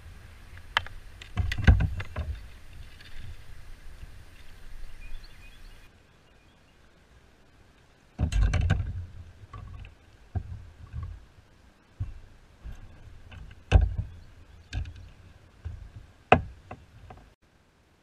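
Irregular knocks and clattering of gear against a plastic kayak hull as fishing gear and a landing net are handled, over a low rumble. There are four loud knocks, about two seconds in, near eight seconds, near fourteen seconds and near sixteen seconds.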